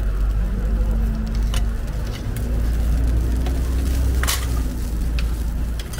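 Hotteok frying on a flat steel griddle with a light sizzle, and a few sharp metal clinks from steel cover lids and tongs, the loudest about four seconds in. Under it runs a steady low rumble.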